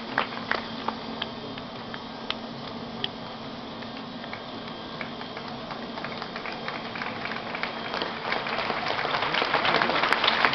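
Leaf blower blowing a steady rush of air with a light patter of scattered petals, then applause swelling in over the last couple of seconds.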